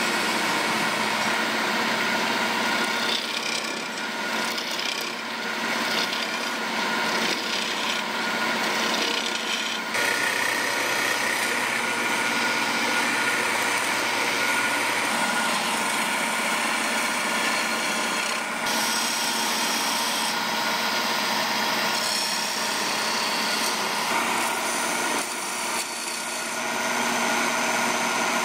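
Wood lathe running as a hand-held turning tool cuts and scrapes a spinning wood cylinder: a steady rasping hiss over the machine's hum, shifting abruptly in tone about ten and eighteen seconds in.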